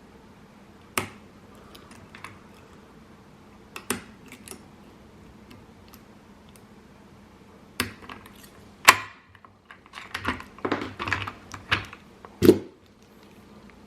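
Small metal clicks and rattles of lock picks and a padlock being handled during picking: a few scattered sharp clicks, then a busy run of rattling clicks in the last few seconds.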